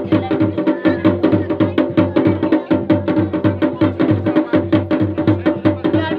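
Dhol and damau drums playing a fast, even rhythm for a Garhwali Pandav dance, with sharp strokes coming several times a second.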